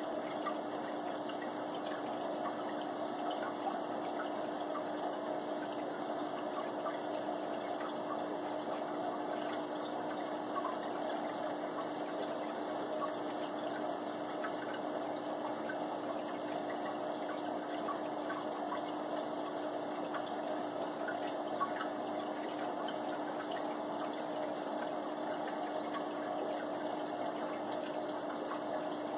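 Aquarium filter and pump running: a steady trickle of moving water over a low, even hum, with faint scattered ticks of bubbles.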